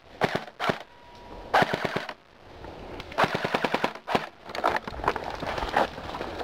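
Dboys SCAR-L airsoft electric rifle firing several short full-auto bursts, rapid clacking shots about a dozen a second.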